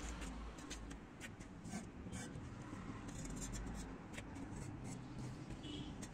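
Faint clicks and scraping as clay bricks are set down and shifted on a small wooden toy trailer, a few scattered knocks over a low steady background noise.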